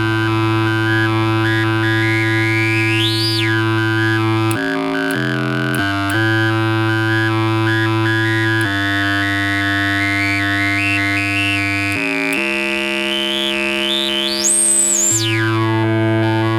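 Proton homemade one-chip synthesizer, a copy of Syntherjack's Totoro synth, playing a held buzzy drone that steps between notes several times. Twice, about three seconds in and again near the end, a resonant filter sweeps up to a piercing high peak and back down.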